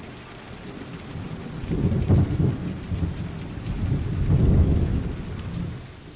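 Steady rain with low rolls of thunder, one swelling about two seconds in and a second, longer one about four seconds in.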